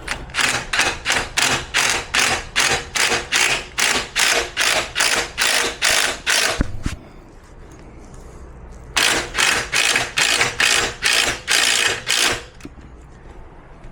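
Ratchet wrench driving a number 5 Allen bit on extensions, clicking in quick regular strokes of about three a second as it backs out the tilt actuator's mounting screw. The clicking stops for about two seconds partway through, then resumes for a shorter run.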